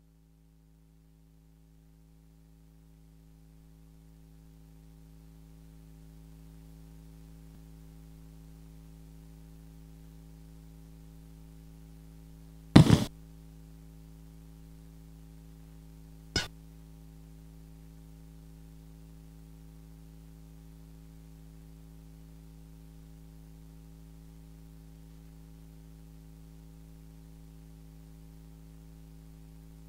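Steady electrical mains hum from the sound system, fading up over the first few seconds and then holding. Two sharp knocks cut through it, the louder about halfway in and a second one about three and a half seconds later.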